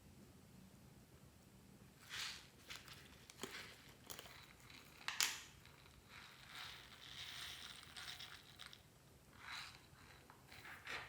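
Slime being mixed and squished by hand: a run of irregular short squishing and crackling sounds starting about two seconds in, the loudest about five seconds in.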